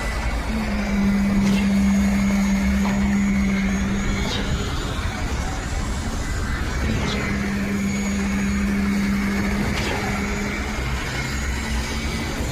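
Schwing truck-mounted boom concrete pump running under load: a steady low engine and hydraulic drone, with a sharp knock about every three seconds as the pumping cylinders change stroke.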